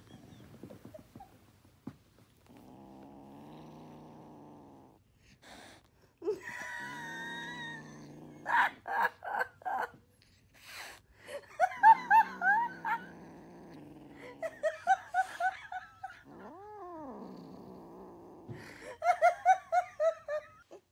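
Kitten growling in long low stretches and giving rapid strings of short, high yowls while gnawing and tugging a rope toy.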